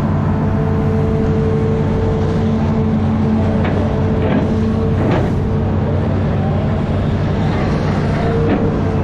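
Amphibious excavator's diesel engine running steadily, its hum shifting slightly about two and a half seconds in, with a few short knocks or clanks midway and again near the end.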